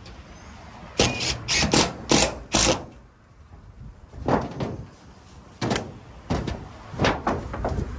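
DeWalt cordless drill driving screws into a rusty corrugated tin roof sheet in a run of short, sharp bursts, about a dozen in all, coming in clusters.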